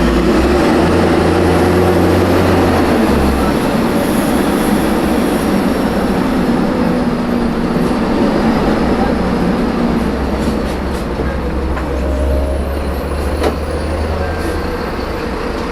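Mercedes-Benz O500M city bus running under way, its engine a low drone that shifts in pitch a few times amid steady running noise. The bus has a holed, leaking exhaust.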